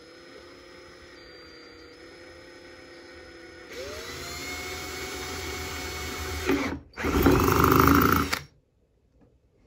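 Power drill with a twist bit boring a hole through the wall of a plastic bucket. The motor runs steadily, then speeds up with a rising whine a little under four seconds in. Near the end the bit cuts through the plastic, the loudest part, for about a second and a half before stopping.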